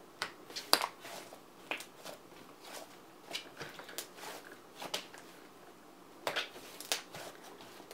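Thick slime being kneaded, folded and squeezed by hand, giving off irregular small pops and clicks as air pockets burst.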